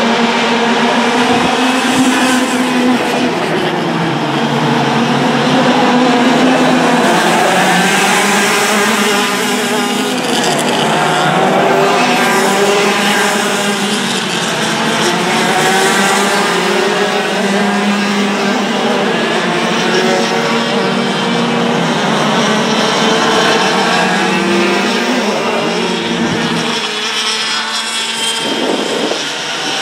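Several racing go-kart engines running at high revs as a pack of karts goes by. Their overlapping notes keep rising and falling.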